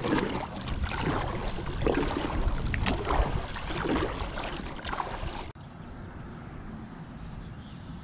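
Kayak paddle strokes, the blades dipping and splashing in lake water about once a second, over a steady rush of water and wind. About five and a half seconds in it cuts off suddenly to a quieter, steady background.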